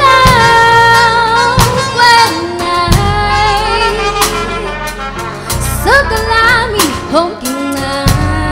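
Live band music: a woman sings long held notes with vibrato and sliding pitch over electric keyboard, bass guitar, drum kit and trumpet, with regular drum hits.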